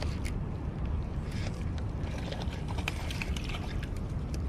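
Steady low wind rumble on the microphone with scattered light clicks while a hooked fish is fought on a baitcasting rod and reel.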